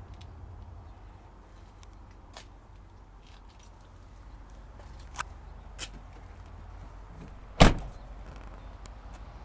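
A pickup truck door, on a 2007 GMC Sierra 1500 crew cab, is shut with one loud solid slam about seven and a half seconds in. A few light clicks come before it, over a low steady rumble.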